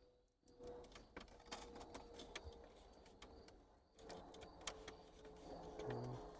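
Faint handling noises: scattered light clicks and rustles as RCA cables and connectors are handled, over a faint steady hum.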